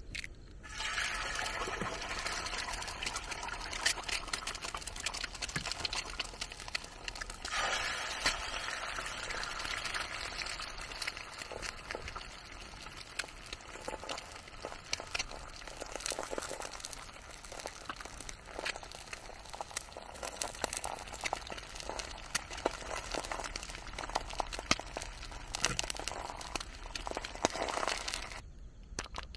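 Eggs frying in hot oil in a black iron frying pan on a portable gas stove: a steady sizzle full of small spitting crackles. It starts as the first egg drops in and flares up again about seven seconds in as the second egg goes in. It cuts off suddenly near the end.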